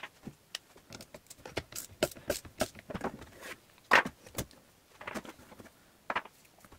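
Hands working inside a Durst RCP20 print processor's plastic housing: a run of irregular light clicks and knocks as old tubing is pulled off its fittings and hand tools are picked up and set down. The loudest knock comes about four seconds in.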